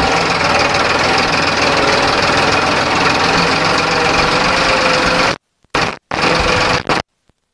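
Farmtrac 60 tractor's three-cylinder diesel engine running steadily under load as it pulls a mounted disc plough through the soil. In the last two seconds the sound drops out to silence several times.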